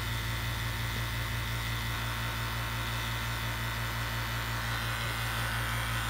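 CPS VPC2SU 115-volt HVAC vacuum pump running with a steady electric hum while pulling a deep vacuum, with the gauge reading around 300 microns.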